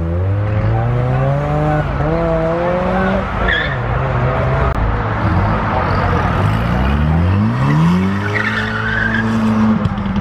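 Car engines revving hard as cars accelerate away with their tyres skidding. One engine climbs in pitch, drops briefly about two seconds in as it shifts, and climbs again. A second car's engine rises sharply about six and a half seconds in and holds high.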